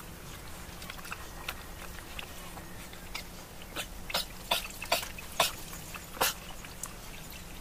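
Calves drinking from a trough of water, slurping and sucking at it; a run of about six sharp, wet slurps comes in quick succession between about four and six seconds in.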